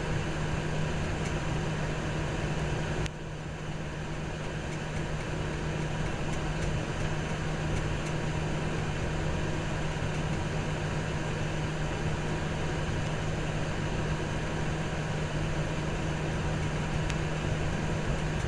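Steady engine running with a constant low hum, at an even level throughout; the sound drops slightly about three seconds in.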